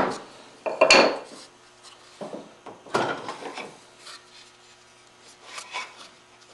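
Curly maple drawer parts being handled: a sharp wooden knock about a second in, then wood rubbing and scraping against wood in short scuffs.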